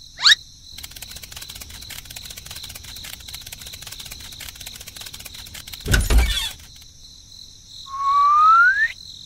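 Cartoon sound effects. A quick swish comes first, then a fast pattering scurry of tiny footsteps for about five seconds. A loud thump lands about six seconds in, and a whistle rises in pitch near the end.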